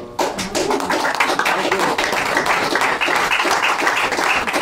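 Audience applauding, the clapping starting just after the song's final chord and running on steadily.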